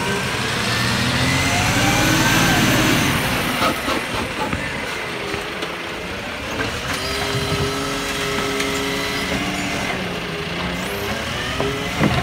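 Side-loader garbage truck's diesel engine running as the truck pulls forward, swelling over the first few seconds. A steady whine from the hydraulics driving the lifting arm runs from about six to nine seconds in, and there is a sharp knock near the end.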